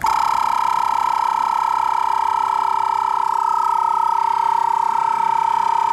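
Audew 12V DC twin-cylinder tire inflator starting abruptly and running steadily with a loud whining tone, pumping up a motorcycle tire.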